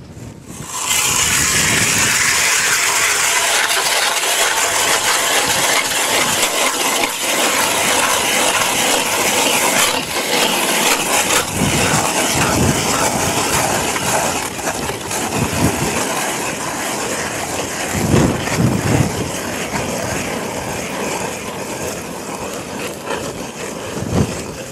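Hand-cranked ice auger boring through thick ice: a continuous scraping, crunching of the blades cutting ice, starting about a second in.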